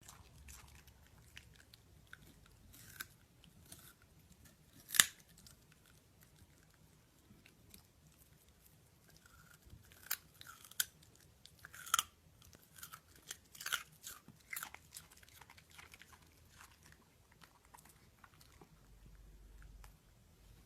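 A dachshund crunching and chewing a raw carrot: irregular sharp crunches with pauses between them, one loud crunch about five seconds in and a quicker run of bites in the middle.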